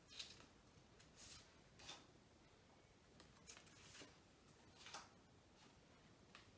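Several brief, soft rustles of card word flashcards being swapped and slid by hand, coming about once a second over faint room tone.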